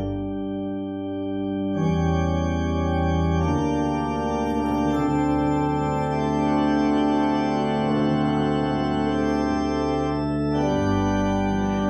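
Organ playing slow, sustained chords, with the chord changing about two seconds in, again a moment later, and near the end.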